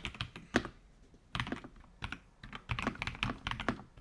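Typing on a Keychron V6 Ultra 8K full-size mechanical keyboard with factory-lubed linear or tactile switches and double-shot PBT keycaps: irregular runs of key clicks, a few keystrokes at first, a short pause, then faster bursts of typing.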